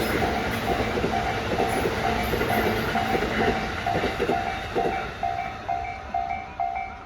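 Container wagons of a freight train rumbling and clattering past on the rails, the noise dying away about five seconds in. Throughout, a level-crossing warning bell rings steadily at about two dings a second, standing out clearly once the train has gone by.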